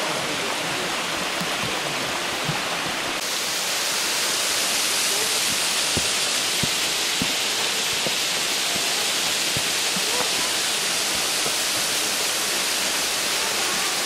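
Water of Hossawa Falls and its stream pouring down, a steady rushing noise that gets suddenly louder about three seconds in. A few faint knocks sound in the middle.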